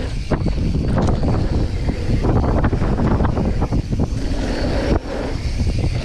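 Mountain bike rolling fast over a packed-dirt jump line: heavy wind buffeting on the handlebar camera's microphone over rumbling tyres, with frequent clacks and rattles from the bike over the bumps.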